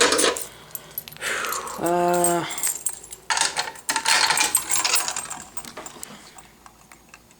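Light metal clinking and rattling from handling a metal fire alarm pull station, with a short low hum about two seconds in.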